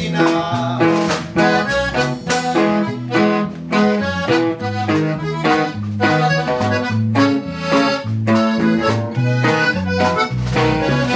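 A norteño conjunto plays an instrumental passage. A red Excelsior button accordion carries the melody over strummed bajo sexto chords, an electric bass stepping between notes, and drums keeping a steady beat.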